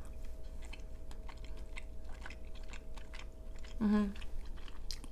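Close-miked chewing of a mouthful of creamy crawfish pasta: soft, irregular wet mouth clicks and smacks, with a brief hummed vocal sound about four seconds in.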